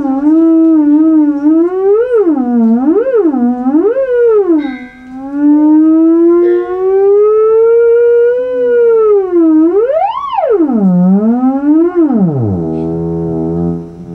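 Theremin playing one continuous note that swoops and wavers smoothly up and down in pitch. About ten seconds in it sweeps high, then slides down to a low, buzzy tone with many overtones near the end.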